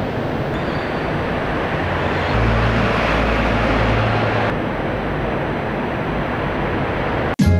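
Outdoor city street noise: a steady rush of traffic, with the low rumble of a passing vehicle swelling about two seconds in and fading a couple of seconds later.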